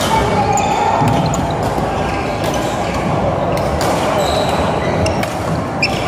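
Badminton rally: repeated sharp smacks of rackets hitting the shuttlecock, with short high-pitched squeaks of shoes on the court floor, over a steady hall din.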